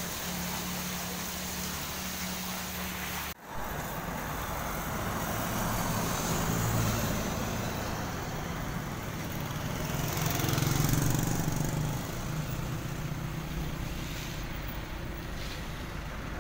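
A fountain's splashing water over a steady pump hum for the first few seconds, cut off suddenly. Then street traffic: engines of passing motorcycles and trucks over road noise, growing louder twice as vehicles go by.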